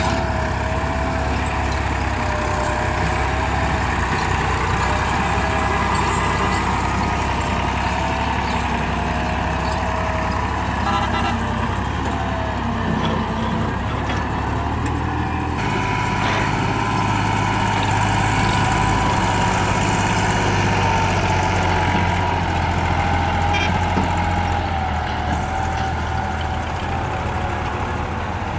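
Diesel tractor engine working under load while pulling a loaded trolley, a steady running drone with a wavering whine over it. The sound changes abruptly just past halfway, to a higher whine and a stronger low drone.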